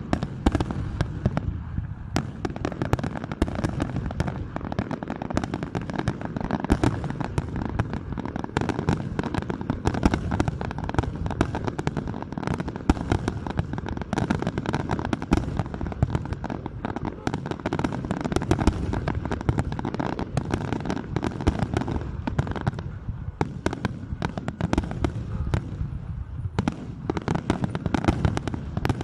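Large fireworks display: a dense, continuous barrage of bangs and crackling bursts, many every second, thinning briefly twice in the last third.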